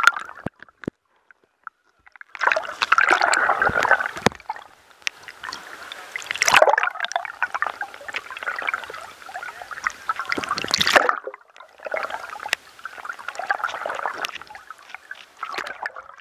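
Water gurgling and sloshing around a submerged action camera, with many sharp clicks and knocks in it, in several stretches broken by short silences.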